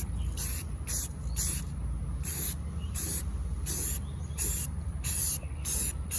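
Aerosol spray paint can being sprayed in a quick run of short hissing bursts, about two a second, as a first coat goes onto a plastic center console.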